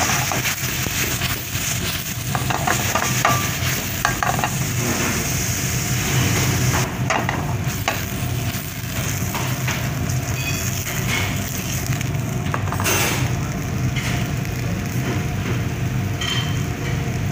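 Cubed beef sizzling in hot oil in a stainless steel pan as it is sautéed with garlic and onion, a steady hiss with a few clicks of stirring against the pan.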